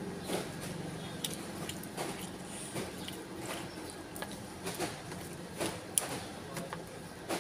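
Close-up eating sounds of a man chewing a spoonful of rice with irregular wet mouth smacks and light spoon clicks against the bowl, the sharpest click about six seconds in as the spoon goes into his mouth. A low steady hum runs underneath.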